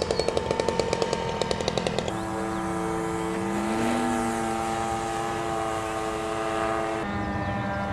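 Radio-controlled model airplane's motor and propeller running in flight. It opens with a rapid pulsing, then changes abruptly about two seconds in to a steady drone whose pitch rises and falls as the plane moves, and changes abruptly again near the end.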